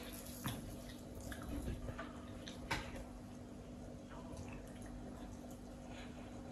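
Quiet room with a steady low hum, over which come a few faint clicks and soft squishy sounds of food being torn apart by hand and eaten.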